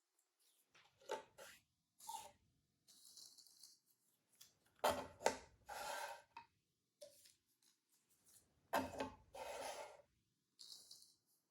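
Cardboard jigsaw puzzle pieces being handled: scattered clicks, taps and rustling scrapes as pieces are slid and pressed together, loudest about five and again about nine seconds in.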